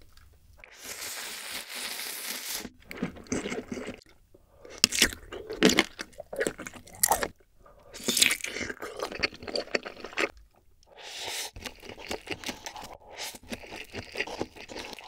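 Close-miked eating sounds: instant ramen noodles slurped in several long draws, between bites and chewing with sharp crunchy clicks.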